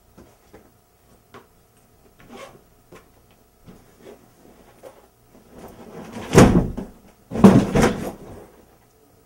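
Handling noise in a room: a few faint clicks, then two loud knocking, scraping noises a little over a second apart, the first about six seconds in.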